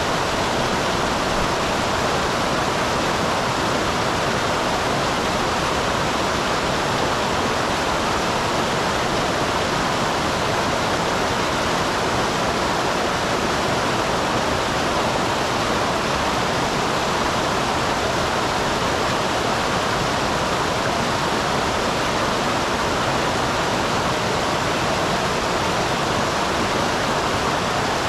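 Small waterfall on a mountain stream: water pouring and splashing in a loud, steady rush that does not change.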